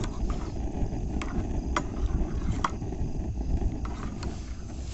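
A spoon stirring soup in a metal cooking pot, clinking against the pot about five times, over a steady low rumble.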